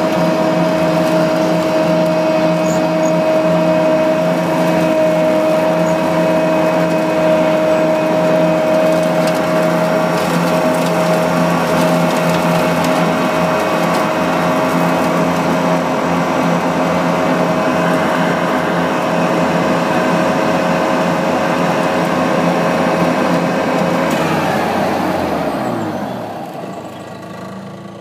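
An engine running steadily at a high, even pitch, then throttling down about 25 seconds in, its pitch falling as it settles to a lower, quieter idle.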